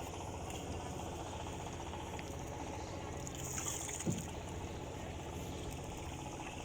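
Steady low rumble of a boat under way on the water, with a single short knock about four seconds in.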